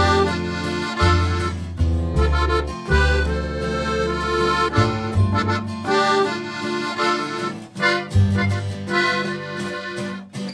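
Instrumental background music: held chords over a bass line whose notes change about every second.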